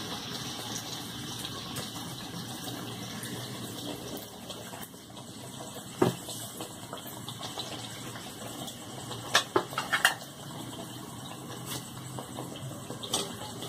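Dal kachoris deep-frying in hot oil in a pan: a steady sizzle, with a few sharp crackles and clicks, several close together about nine to ten seconds in.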